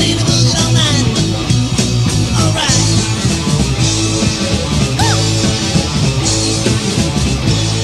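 Boogie rock band playing an instrumental passage: electric guitar, bass and drums with cymbal crashes. Near the end the band lands on a held chord that starts to ring out.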